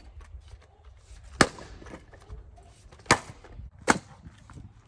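Axe splitting firewood rounds: three sharp whacks of the blade into the wood, the second and third less than a second apart, with light knocks of split pieces between.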